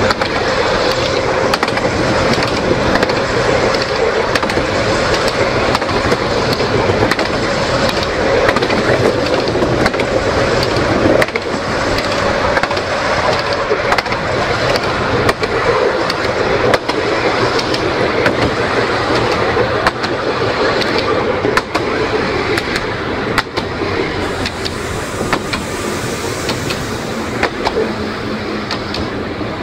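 Electric narrow-gauge tramcar rolling along the rails: a steady rumble of wheels on track with scattered sharp clicks, and a faint steady hum that fades after the first few seconds.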